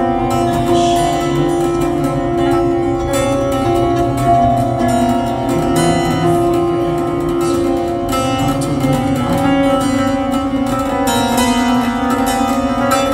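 Experimental electronic music played live: held drone tones that step to new pitches every few seconds, over a dense grainy texture with scattered clicks.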